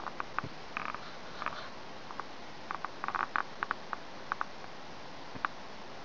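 Footsteps crunching and squeaking in fresh snow: irregular short crackles, bunched about a second and three seconds in, over a steady hiss.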